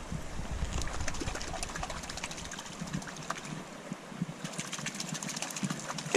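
A hand patting and splashing the surface of shallow river water, a run of small splashes and ticks, over a low rumble in the first second or two.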